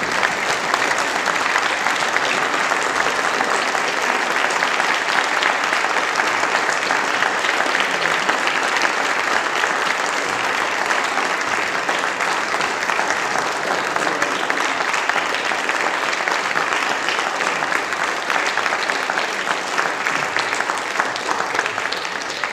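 Sustained applause from a large crowd of people, a dense, steady clapping that eases slightly near the end.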